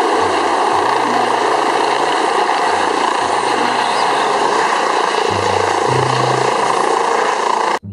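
Helicopter with a fenestron tail rotor hovering low: a loud, steady rush of rotor and turbine noise with a high whine over it, cutting off abruptly near the end.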